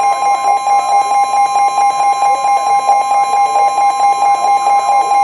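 Emergency Alert System attention tone from a weather radio broadcast: a loud, steady two-pitch tone, starting abruptly and held without a break.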